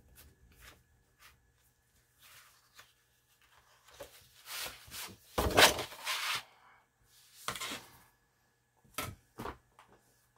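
Hands handling and smoothing stiff old paper pages: soft rustles and rubs as a glued page spread is opened out and pressed flat, loudest a little past the middle, with a couple of light taps near the end.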